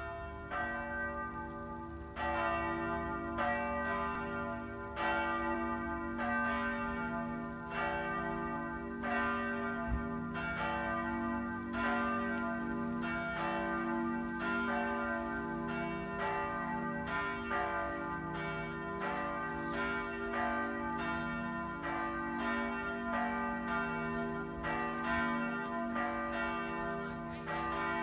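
Two swinging church bells ringing together, the small bell (cast 1890 by Bergholtz, 125 cm, about 1200 kg) and the middle bell (cast in the 1700s, 140 cm, about 1955 kg), their strokes coming every second or so over a lasting hum. This is the joint ringing that calls the congregation to high mass.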